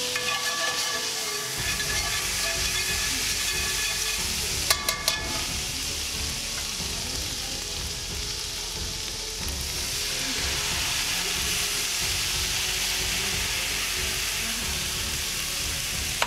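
Soy sauce and red wine sizzling and bubbling in a hot skillet as the pan is deglazed, with metal tongs scraping and a few sharp clicks about five seconds in. The sizzle thickens about ten seconds in, when the red wine hits the pan.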